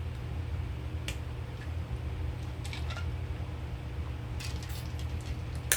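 Eating sounds: a few short mouth clicks and smacks while chewing, the sharpest near the end, over a steady low hum.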